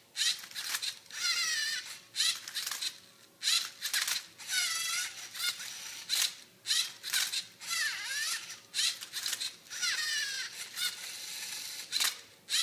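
LEGO Mindstorms Rubik's Cube solver working through its moves: its electric motors whine in short runs that glide up and down in pitch, broken by sharp clicks and clacks as the cube is gripped, turned and flipped.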